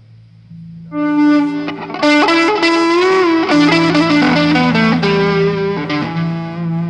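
Distorted electric guitar playing a loose lead phrase through an amplifier. It comes in about a second in with held single notes, some bent up and down and wavering with vibrato, over a low steady hum.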